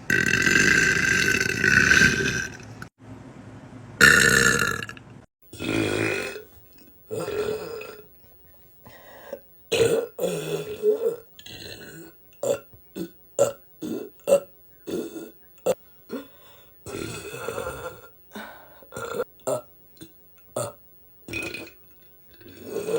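Several women burping in turn: a long drawn-out burp at the start, another loud one a few seconds in, then a quick run of short burps about two a second, and a few longer burps near the end.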